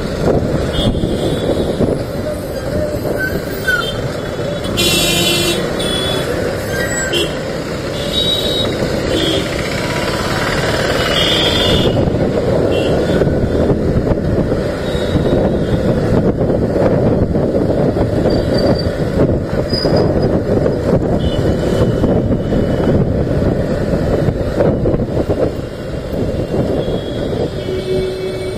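A motorcycle running through city traffic, its engine and the wind on the microphone making a steady rush. Short horn toots from traffic sound several times in the first half.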